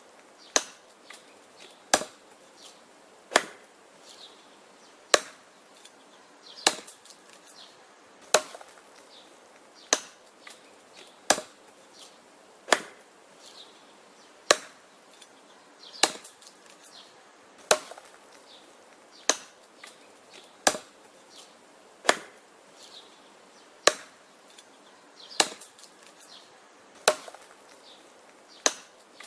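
Wood being chopped: a steady run of sharp chops about every second and a half, with lighter knocks and splintering between strikes.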